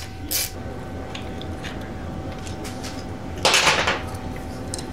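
Hand work on a motorcycle's left handlebar switch housing and controls: a few faint light clicks, then a short scraping rustle lasting about half a second, about three and a half seconds in, which is the loudest sound.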